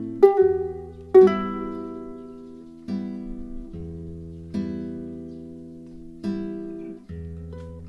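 Background music of a plucked string instrument, guitar-like, playing slow picked chords over low bass notes. A new note or chord sounds about every second and a half and rings away.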